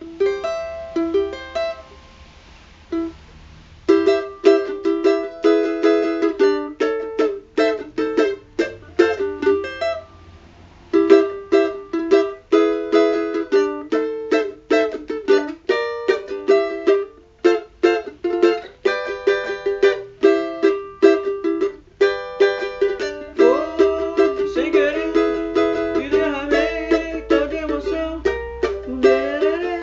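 A cavaquinho played solo: a melody of single plucked notes, broken by a couple of short pauses, with a few sliding notes near the end.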